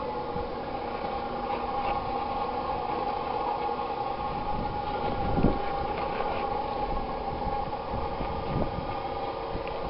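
Small engine running steadily on wood gas from a homemade downdraught gasifier, with its exhaust visibly smoky. One brief low thump about five and a half seconds in.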